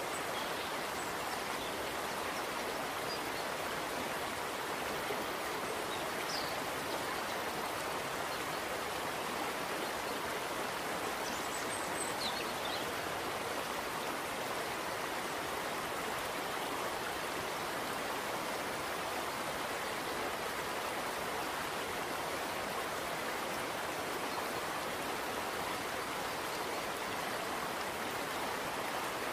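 Steady rushing of running water, like a stream, with a few faint high chirps near the start, about six seconds in and about twelve seconds in.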